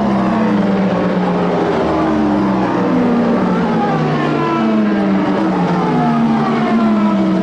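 Several endurance race cars at full speed, their engine notes falling in pitch one after another as the cars pass in quick succession.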